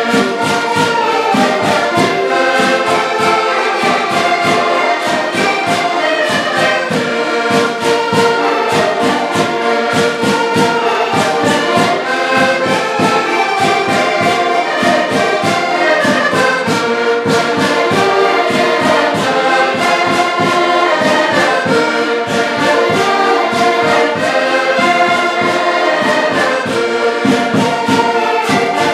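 Ensemble of button accordions playing a lively folk tune together in chords, with a bass drum keeping a steady beat.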